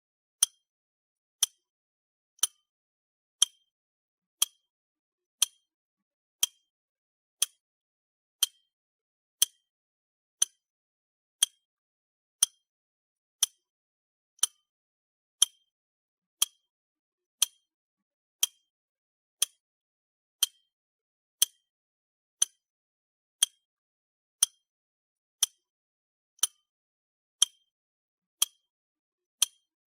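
Clock ticking sound effect: single sharp ticks, one per second, evenly spaced.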